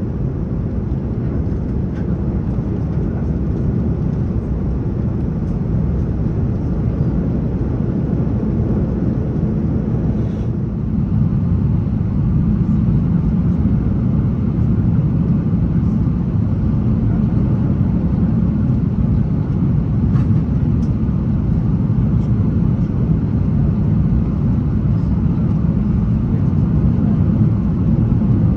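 Steady rumble inside the cabin of an Airbus A330-900neo airliner during landing. It grows louder about ten seconds in, around touchdown and the rollout.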